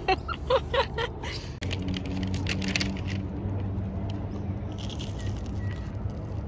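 Crisp, flaky pastry crackling as it is bitten and chewed close to the microphone. A steady low hum runs underneath from about a second and a half in.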